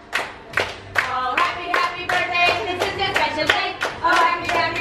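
A group of people clapping together in a steady rhythm, about two and a half claps a second, while singing along.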